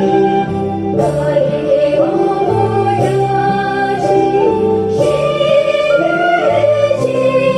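A dance song: singing over instrumental accompaniment, with held notes that change about once a second and a steady loudness throughout, played for a traditional Bhutia dance.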